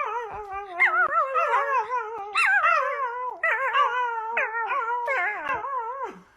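Dog howling in long, wavering, warbling notes that wobble quickly up and down in pitch, with a few short breaks, then stopping just before the end.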